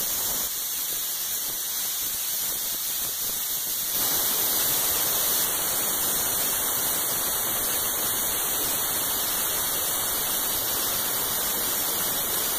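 Plastic media blasting nozzle spraying plastic grit with compressed air against the 1954 Corvette's fibreglass body: a loud, steady hiss, slightly louder from about four seconds in.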